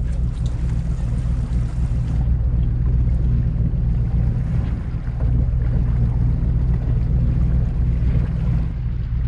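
A boat's engine running steadily with a low, even hum, mixed with wind on the microphone and water noise.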